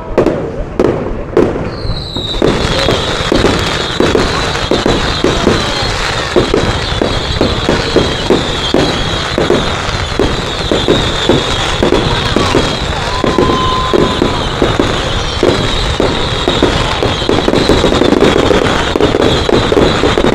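Fireworks going off: a few separate bangs, then from about two seconds in a dense, continuous barrage of rapid bangs with a steady high hiss over them.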